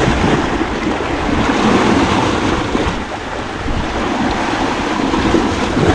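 Strong wind buffeting the microphone, with sea surf washing against the rocks: a loud, steady rushing with a heavy low rumble.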